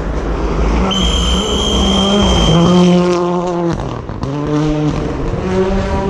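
Rally car engine at high revs coming through on a gravel forest stage, its note holding, cutting briefly about four seconds in and returning lower with gear changes. A steady high whistle sounds for about two seconds near the start.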